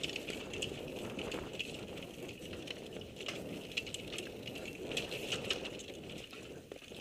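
Mountain bike descending a rough dirt trail, heard from the rider's helmet camera: tyres rumbling over roots and rocks, with a constant stream of rattles and clicks from the bike.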